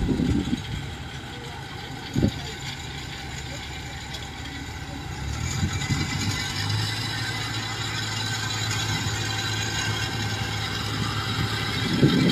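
Engines of a tracked rice-hauling cart and a combine harvester running steadily, with a steadier low engine note coming in about six and a half seconds in. Short low thumps sound at the start, about two seconds in and near the end.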